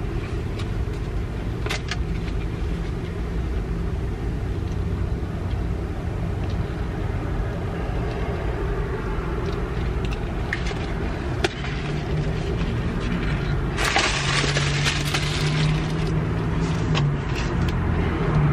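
Car engine running, heard from inside the cabin as a steady low hum. There are a few light clicks and a brief noisy burst about fourteen seconds in, and the engine grows louder near the end.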